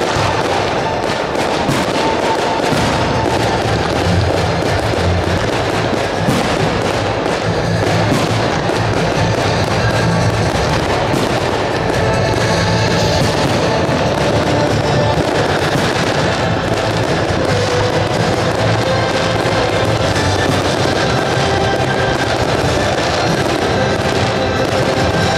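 Fireworks bursting and crackling in quick succession over music playing throughout.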